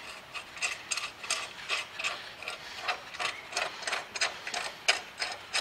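A run of light clicks and ticks, about three or four a second, from nuts and washers being run on by hand onto the tow bar's mounting bolts.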